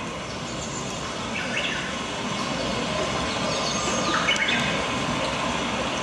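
Rain-and-forest soundscape played over the theatre sound system: a steady hiss of rain with short bird calls about a second and a half in and again around four seconds.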